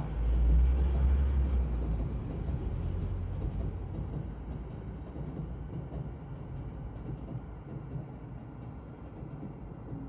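Keio Line commuter train running past at a level crossing, a steady rumble of wheels on rails, heard from inside a waiting car. A heavier low rumble swells over the first couple of seconds and then eases.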